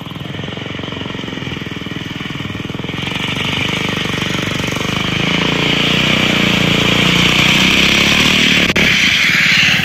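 Small single-cylinder lawnmower engine on a drift trike running, getting louder as the trike comes closer. A broad hiss builds from about three seconds in and is loudest near the end.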